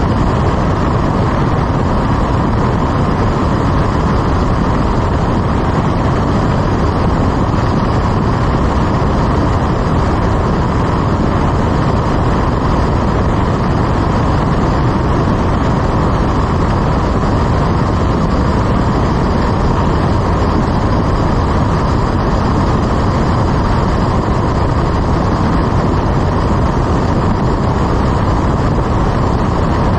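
Twin-engine turboprop aircraft in flight, heard from inside the cabin: a steady, loud drone of the engines and propellers mixed with airflow noise.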